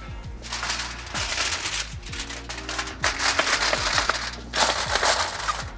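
Aluminium foil being crinkled and pressed down over a pan, in three bursts of rustling, over background music.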